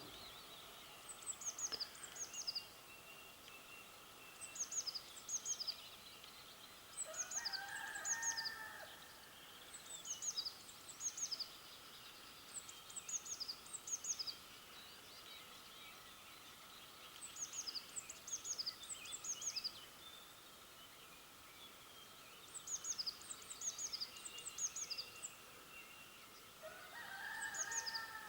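A rooster crows twice, once about seven seconds in and again near the end, each crow lasting about two seconds. Between the crows, small songbirds sing short, high, quickly descending phrases over and over.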